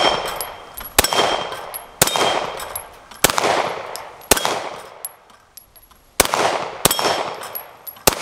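A 9mm Lone Wolf Dusk 19 pistol fired in slow aimed shots, about seven at roughly one a second with a longer pause near the middle, each shot echoing away. Steel plate targets give faint metallic rings after some of the shots.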